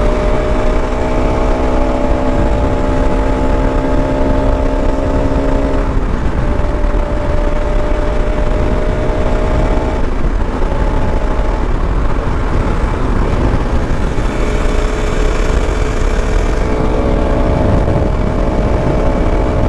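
Sport motorcycle's engine running steadily at highway speed under heavy wind rush on the microphone. Its pitch eases down slightly over the first several seconds, dips briefly twice as the throttle eases, then holds steady.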